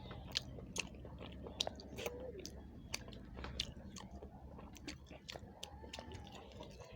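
Close-up eating sounds: food being chewed, with sharp wet mouth clicks at irregular intervals.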